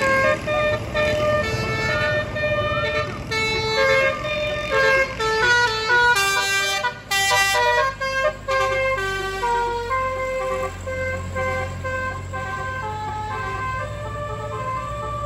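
Tour bus 'basuri' melody horn playing a tune of stepped notes, with quick runs in the middle and longer held notes toward the end, over a steady low engine rumble.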